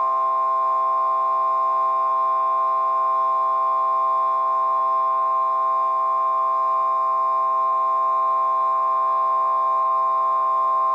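Harmonica-like vocoder sound effect holding one steady, unchanging chord, its brightest note high and piercing.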